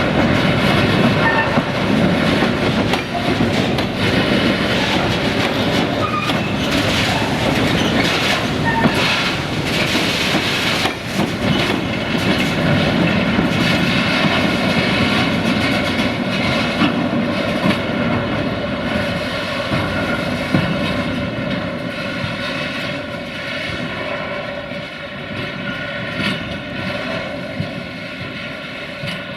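Freight train's wagons rolling past with a steady clickety-clack of wheels over rail joints and a ringing squeal from the wheels. The sound fades over the last several seconds.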